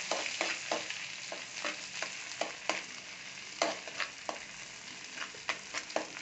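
Sliced onions sizzling in hot oil and ghee in a metal kadai while being stirred with a spatula, which scrapes and knocks against the pan several times a second. The sizzle eases a little over the first few seconds.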